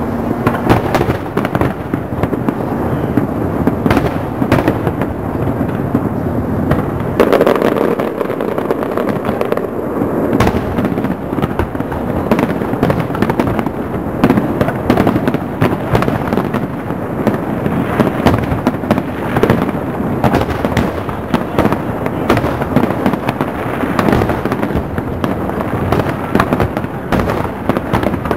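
Aerial fireworks shells bursting in a dense, continuous barrage: many overlapping bangs and pops with no pause between them.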